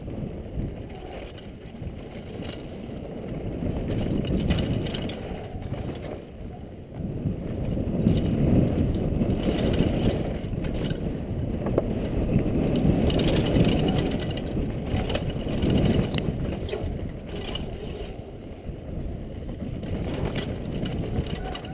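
Downhill mountain bike ridden fast over a loose, rocky dirt trail: tyres crunching and skidding on gravel, with the bike rattling and knocking over rocks, heard from a helmet-mounted camera. The rough noise swells and fades with the terrain, loudest about midway through.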